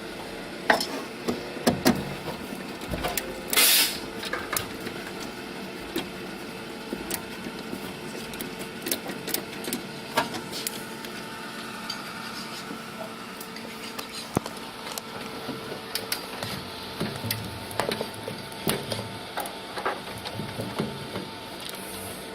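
Irregular clicks, taps and light scrapes of hand tools and small metal parts being handled while a 3D printer's front switch panel is worked on, over a faint steady hum. A louder rustling scrape comes about three and a half seconds in.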